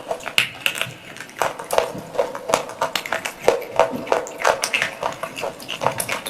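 Close-miked chewing and crunching of dry baked clay pot pieces: a dense, irregular run of sharp crackling crunches, several a second.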